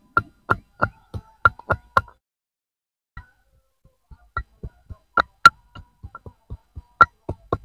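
Wooden pestle pounding ginger and garlic in a small mortar: sharp knocks about three a second, stopping for about two seconds midway, then pounding again.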